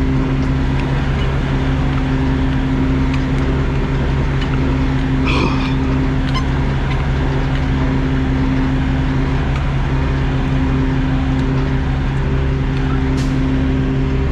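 Kenworth W900 semi truck's diesel engine idling steadily with an even pulse. A short hiss comes about five seconds in.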